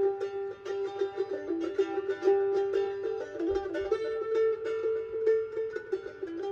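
Music: a quickly picked plucked-string instrument playing a lively run of short notes.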